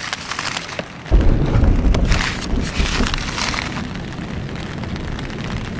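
Heavy rain beating on a tent's fabric, with a sudden loud, deep rumble of thunder starting about a second in and rolling on through the rest of the storm noise.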